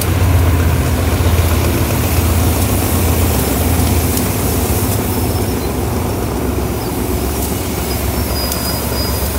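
A GE diesel-electric locomotive of Thai Railways' GEA class running close by with a steady deep engine drone as it hauls passenger coaches, easing slightly towards the end.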